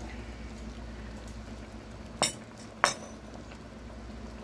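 Two sharp clinks about half a second apart: a metal serving spoon knocking against a china bowl while sauce is ladled over rice.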